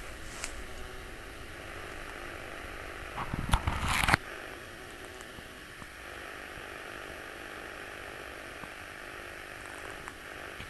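A short burst of crackling and rustling about three and a half seconds in, opening with one sharp snap and stopping suddenly, over a steady outdoor hiss.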